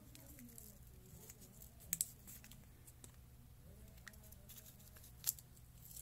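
Crinkling and peeling of a paper adhesive warning label, with a pair of sharp clicks about two seconds in and another near the end, over a steady low hum.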